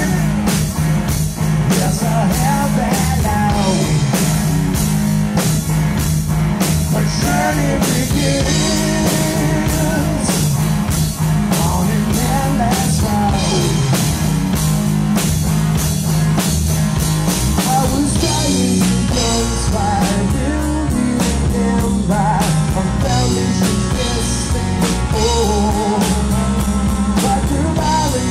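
Live rock band playing: a man singing over electric guitar, bass guitar and drum kit, with a steady drum beat.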